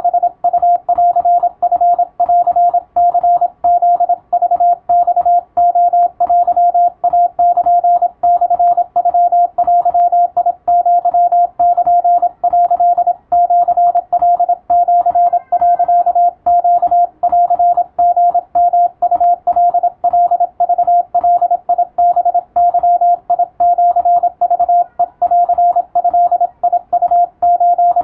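Japanese wabun Morse code sent as a single-pitch tone, keyed on and off without pause in quick dots and dashes. It is a receiving-practice message in the radiotelegram format of the radio operator exam.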